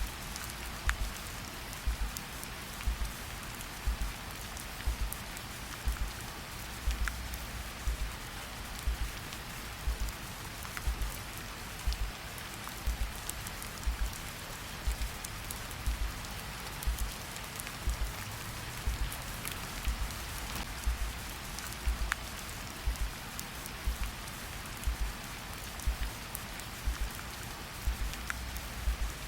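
Steady rain falling, with a slow heartbeat beneath it: a low double thump about once a second.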